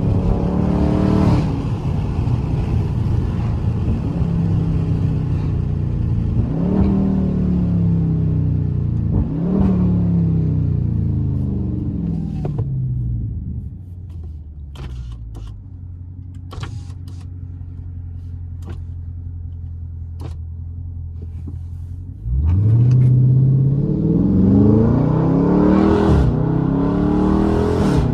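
Dodge Charger Scat Pack's 392 Hemi V8 accelerating through the gears, its pitch rising and dropping back at each upshift, then settling to a quieter steady cruise with a few light clicks. About 22 seconds in it opens up into a hard, loud pull, with another upshift near the end.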